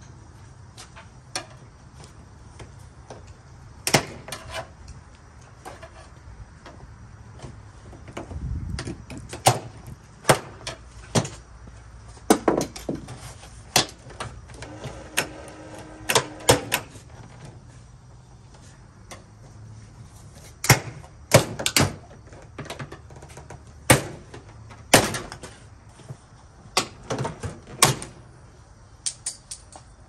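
Plastic interior trim panel of a Chevy SUV's liftgate being worked loose by hand: an irregular string of sharp snaps and clicks as its retaining clips pop and the plastic knocks, with one dull thud and a brief squeak about midway.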